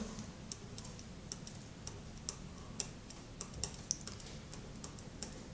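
A pen writing on a sheet of paper: faint, irregular light taps and clicks, a few each second, as the symbols of an equation are written out.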